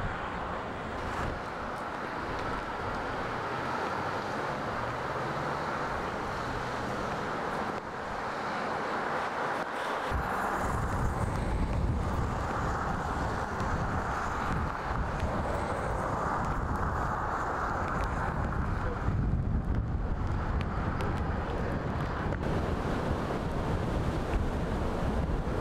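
Strong, gusty storm wind blowing outdoors and buffeting the microphone; the low rumble of the buffeting gets much heavier about ten seconds in.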